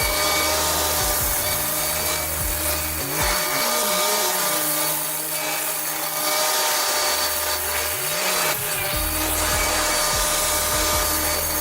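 A power saw cutting through wood with a rasping sound, over background music.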